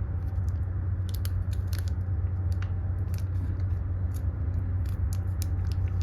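Plastic penny sleeve and rigid top loader being handled as a trading card is worked into them, giving irregular small clicks and crinkles. A steady low hum runs underneath.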